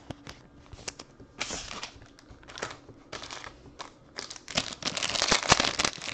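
Foil trading-card pack wrappers crinkling as they are handled and a pack is opened: scattered short crackles at first, then steady, louder crinkling from about four seconds in.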